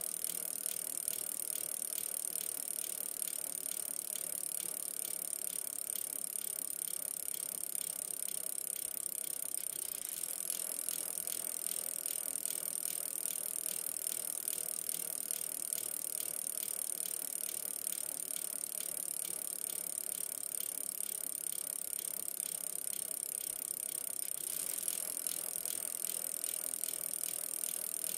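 Steady noise of a bicycle in motion, with tyres rolling over the street and wind, picked up by a camera mounted on the bike, under a constant high hiss.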